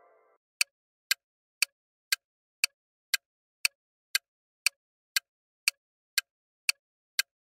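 Clock-tick sound effect of a quiz countdown timer: sharp, evenly spaced ticks about two per second, starting about half a second in, after a ringing chime dies away.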